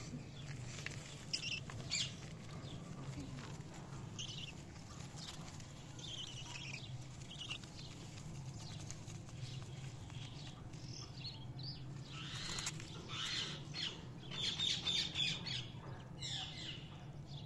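Budgerigars chirping in short scattered calls, busier and louder in the last few seconds, over a steady low hum.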